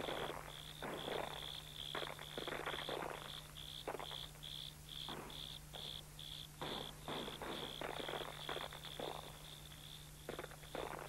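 A cricket chirping steadily, about three chirps a second, over irregular rustling and crunching like steps through dry scrub and stones. A steady low hum runs underneath.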